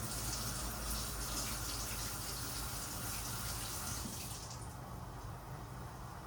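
Kitchen tap running, the water shut off about four and a half seconds in.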